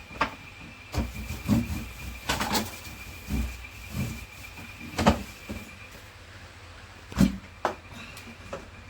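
Irregular knocks and clunks of pots, lids and utensils being handled while cooking, the loudest about five and seven seconds in. A faint steady high tone runs behind them.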